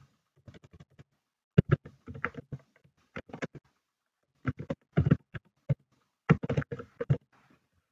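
Computer keyboard being typed on: quick runs of keystrokes in three or four bursts, with short pauses between them.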